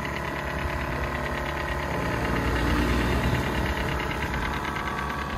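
Portable air compressor running steadily, inflating a tyre, with a fast even mechanical chatter.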